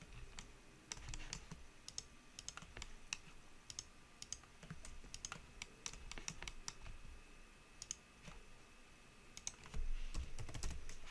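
Computer keyboard keys and mouse buttons clicked in quick, irregular taps, faint. A louder low rumble comes in about ten seconds in.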